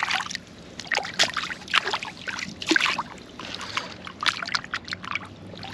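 Shallow water splashing and trickling in irregular bursts.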